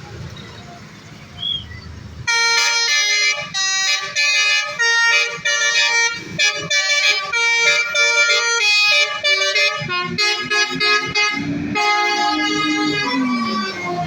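Indonesian bus 'basuri' telolet horn, a multi-tone horn set, playing a loud stepped melody that starts about two seconds in, after a low engine rumble. A lower tone slides down near the end.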